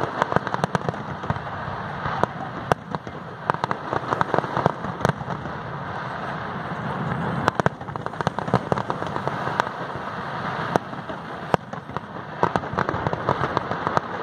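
Aerial fireworks display: a continuous crackle of bursting shells, broken by many sharp bangs at irregular intervals.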